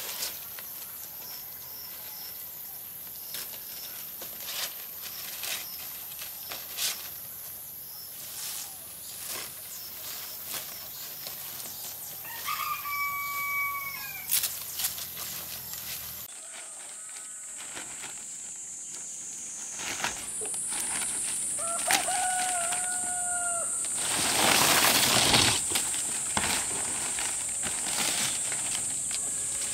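Fan-palm leaves rustling, with light knocks on bamboo, as the leaves are handled and laid over a bamboo frame, and a louder rush of rustling near the end. A rooster crows twice over a steady high hiss, once near the middle and again later.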